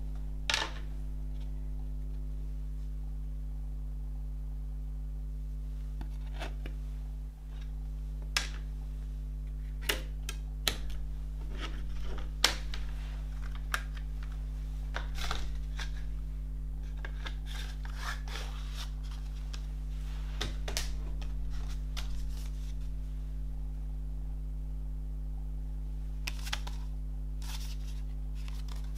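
Plastic CD jewel cases being handled on a wooden desk: a dozen or so sharp clicks and clacks as cases are closed, picked up and set down, with stretches of light rustling from about two-thirds through and again near the end. A steady low electrical hum runs underneath.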